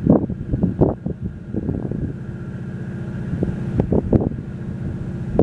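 Steady drone of a high-speed catamaran ferry's engines running at speed across the water, overlaid by gusts of wind buffeting the microphone, strongest over the first two seconds and again briefly about four seconds in.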